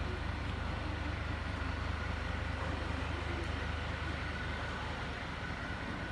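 Large Japanese temple bell (bonshō) resonating: a deep, steady hum with fainter higher tones held above it, slowly fading.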